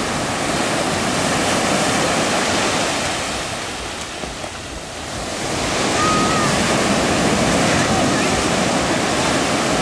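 Ocean surf breaking and whitewater rushing onto the shore. It eases off about four seconds in, then swells again as a wave breaks over the bodyboarder.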